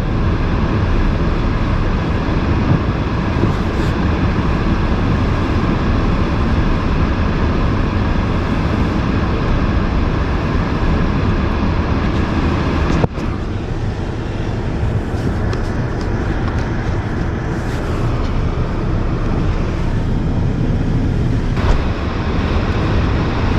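Car driving on a snowy road: steady engine and tyre noise. It breaks off abruptly about halfway through and resumes at a slightly lower level.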